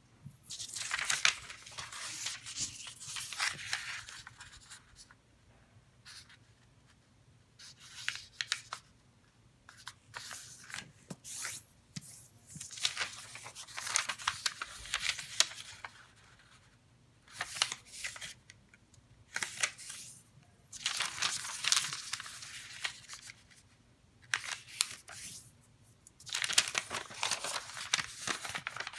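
Square sheet of origami paper being handled, folded and creased by hand against a tabletop: crisp rustling and sliding in repeated spells with short pauses between them.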